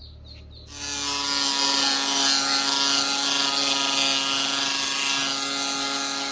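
A small motor-driven machine switched on and running steadily, a hum under a loud hiss, starting suddenly about a second in.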